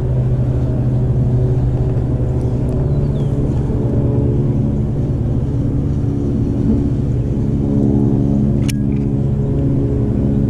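An engine running steadily at an even pitch, with one sharp click about eight or nine seconds in.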